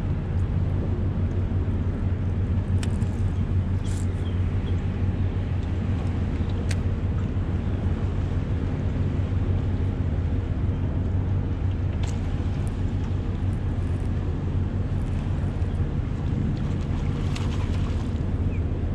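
Steady low hum of a small boat's motor running at an even speed, with a few faint clicks and ticks.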